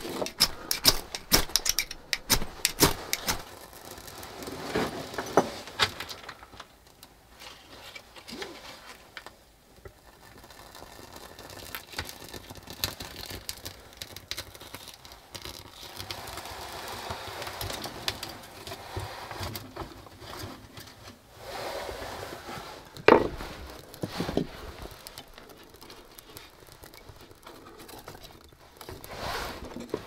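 Kindling sticks clattering and knocking as they are laid into a small steel wood stove, with a softer hiss and crackle in the middle as the kindling is lit and catches. One loud knock comes a little past two-thirds of the way through.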